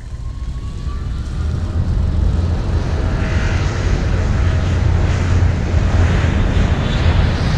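Jet airliner engines: a low rumble that swells steadily louder, with a faint rising whine in the first second.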